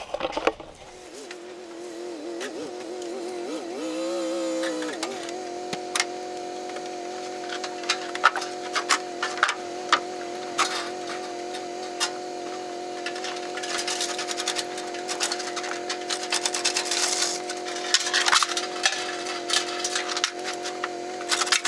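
A motor or engine winds up over the first few seconds, then settles into a steady hum. Scattered clicks and knocks sound over it, busiest about two-thirds of the way through.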